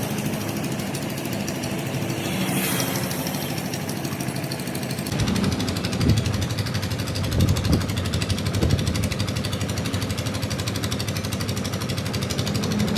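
Construction machinery running with a rapid, even hammering beat, getting a little louder and heavier about five seconds in.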